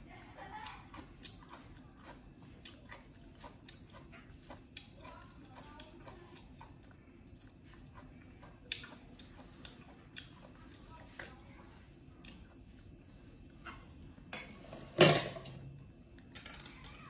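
Scattered light clinks and taps of a plate and cutlery being handled, with one loud clatter about fifteen seconds in.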